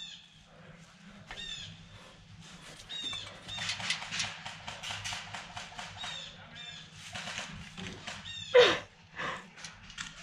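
Airsoft guns firing: scattered shots, then a dense run of rapid clicking shots, about ten a second, like an electric airsoft rifle on full auto. A single louder sharp sound comes about eight and a half seconds in.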